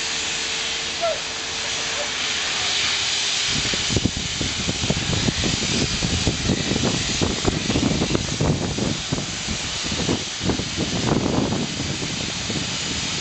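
Steady hiss of grit blasting on a nearby boat. A low hum stops about three and a half seconds in, and from then on an irregular low rumbling comes and goes under the hiss.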